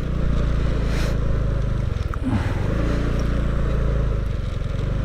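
Motorcycle engine running while the bike is ridden, with road and wind noise; its note briefly drops and changes pitch about two seconds in.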